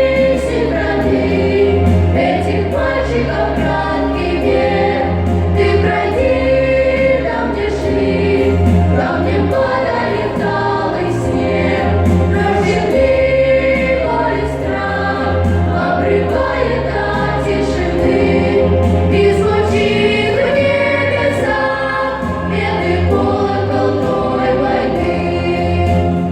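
Song performed by a choir with instrumental accompaniment and a steady, held bass line.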